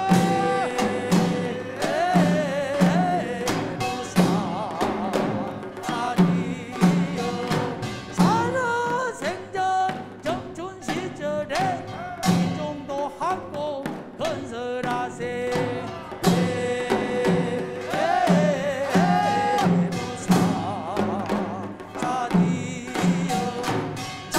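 Korean rice-transplanting field song (deulsori) sung by a group of voices, over a steady beat on buk barrel drums.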